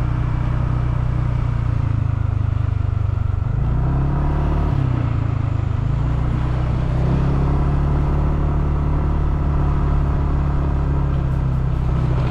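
Motorcycle engine running at low road speed, heard from on the bike. The engine note dips and shifts about four seconds in, then settles into a steady drone for the rest.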